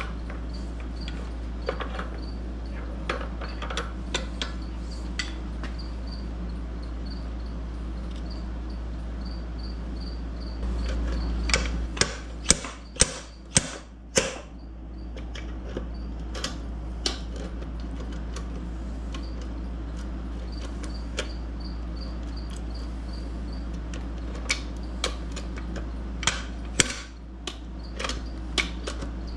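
Slide hammer knocking against its stop as it pulls the gimbal bearing out of a MerCruiser gimbal housing. Sharp metal knocks come now and then, with a run of about six hard blows in quick succession near the middle and another cluster of blows near the end, over a steady low hum.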